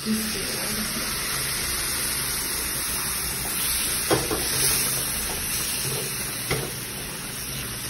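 Saffron milk poured into roasted ground almonds and semolina in hot ghee, sizzling steadily in a kadhai as a silicone spatula stirs it through. The sizzling starts suddenly as the milk goes in, with a couple of soft knocks of the spatula against the pan about four and six and a half seconds in.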